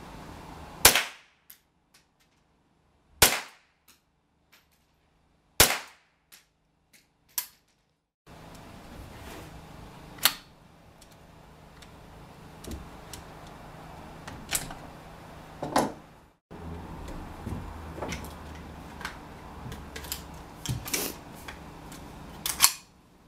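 Ruger 10/22 semi-automatic .22 rimfire rifle firing single shots. Three sharp cracks come about two and a half seconds apart in the first six seconds, then a few more shots spaced further apart. Smaller clicks and knocks sound between them as the rifle's action is handled.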